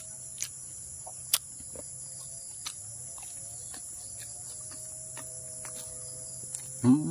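Steady high-pitched insect chorus, with a few sharp clicks scattered through it.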